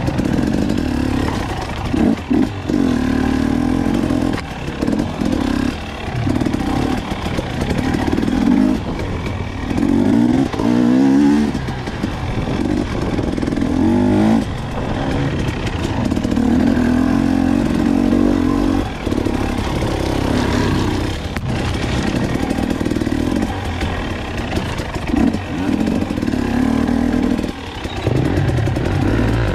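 Dirt bike engine heard close up from the rider's own bike, revving up and down as it is ridden along a rough trail. The throttle is rolled on and off every few seconds, with brief dips between pulls and rising pitch during the longer pulls.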